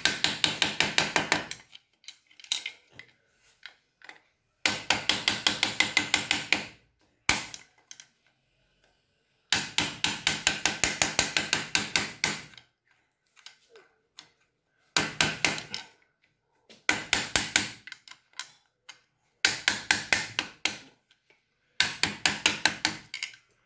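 Small hammer tapping on a tool set into a broken, seized spark plug in a Hero Splendor's cylinder head to work its threads loose. The strikes are quick, light, ringing metal taps, about six a second, in bursts of one to three seconds with short pauses between.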